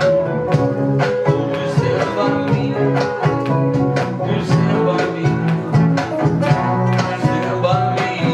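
A small group of acoustic guitars and an electric guitar played together, strummed and picked over a steady low bass line, with a man singing along.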